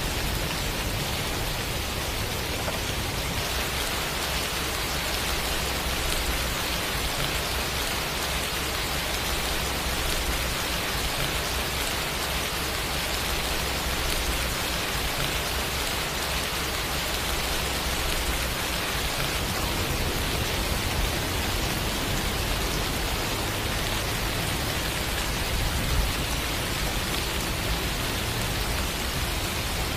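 Steady rain falling, an even hiss of many drops with a low rumble underneath.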